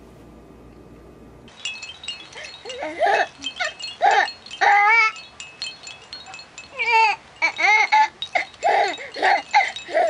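Small bells on a hanging baby toy jingling and clinking as a cat bats and bites at it, starting about a second and a half in, mixed with short high squeals that rise and fall in pitch.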